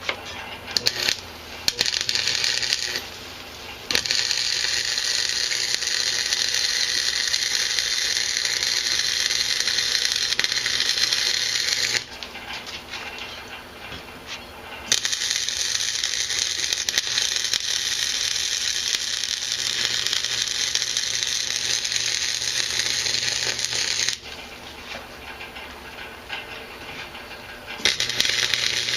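Electric welding arc crackling in long steady runs of about eight seconds each, with short pauses between beads, while the horseshoes are joined. A few sharp clicks come in the first seconds.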